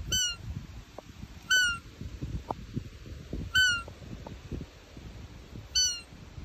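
Roe deer call blown four times, short high peeps about two seconds apart, each dropping slightly in pitch. It imitates a doe's fiep to draw a rutting roebuck in.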